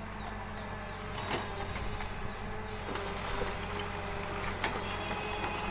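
Komatsu PC128UU excavator running steadily as it moves and works its boom and bucket, with a faint whine joining about halfway and a few short metallic clanks and squeaks.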